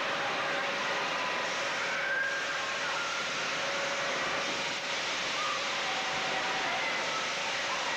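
Steady din of an indoor amusement center: ride machinery, arcade games and a crowd blended into continuous noise, with faint short electronic tones scattered through it.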